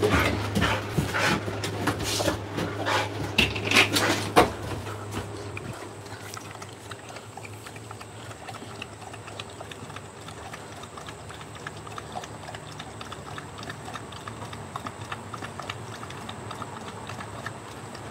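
A dog lapping water from a bucket: a steady run of small, quick wet clicks. It is preceded by a few seconds of loud knocks and handling noise.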